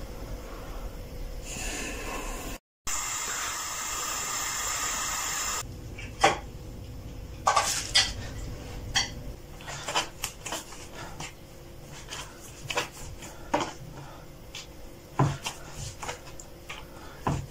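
Home kitchen work: a few seconds of steady hiss, then scattered clicks and knocks of pans and utensils, and a couple of soft thumps near the end as dough is pressed on a wooden board.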